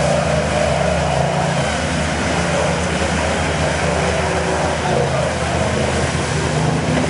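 Pickup truck's engine running hard and steady at high revs, with its tyres spinning and churning through deep mud.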